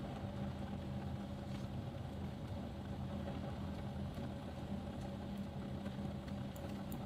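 A steady low mechanical hum, like a small motor running, with a few faint light clicks of metal knitting needles working yarn.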